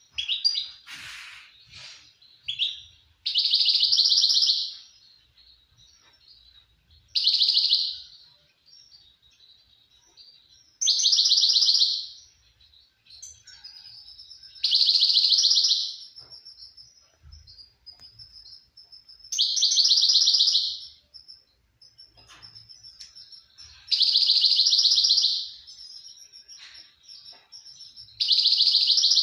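Caged finch singing: a loud, high, fast trill phrase about every four seconds, seven in all, with quieter twittering between them.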